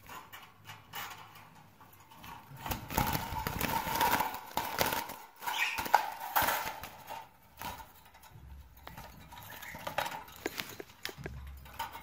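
Wire birdcage rattling and clanking as a hand reaches in and catches a budgerigar, with a dense run of knocks and clatter for several seconds from a few seconds in, then lighter handling knocks.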